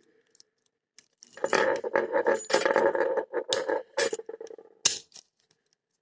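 Chinese SZN padlock being worked by hand: about a second in, a run of metallic rattling and clinking with a few sharp clicks, lasting roughly three and a half seconds. The owner says the lock has started jamming since it was picked.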